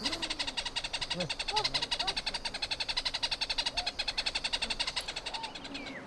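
Greater honeyguide giving a fast, dry, rattling chatter of many even clicks a second, the call it uses to lead honey hunters to a bees' nest.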